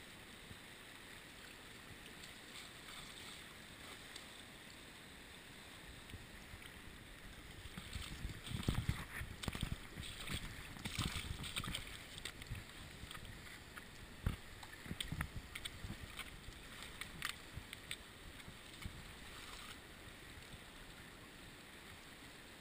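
Steady rush of a fast river running over rocks. In the middle stretch it is broken by a spell of irregular bumps and buffeting on the microphone and a few sharp clicks.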